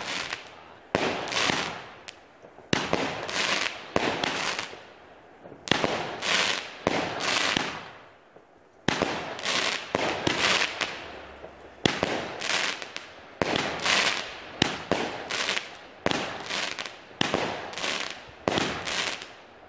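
Weco Alligator 15-shot multi-effect fireworks battery firing shot after shot, a new shot every second or two. Each one is a sharp bang followed by a cluster of smaller pops as the effect bursts.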